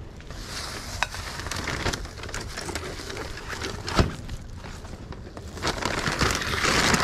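Thin plastic bags and paper wrapping rustling and crinkling as items are packed into a shopping bag, with a sharp click about a second in and a thump about four seconds in; the crinkling grows louder near the end.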